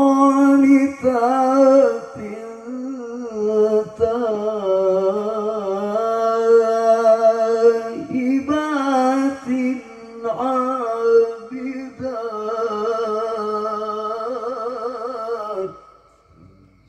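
A male qari's melodic Quran recitation (tilawah) sung into a microphone and heard through a PA sound system: long held notes with wavering ornaments, in phrases broken by short breaths, stopping about 16 seconds in.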